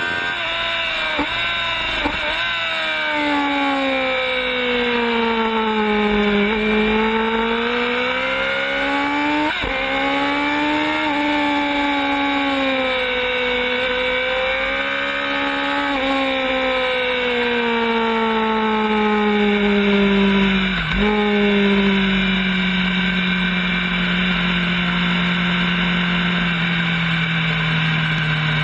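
Racing motorcycle engine, heard from onboard at speed with wind rush, its pitch rising and falling with throttle and gear changes and dipping sharply for an instant a few times. Over the last several seconds the pitch falls steadily as the bike slows.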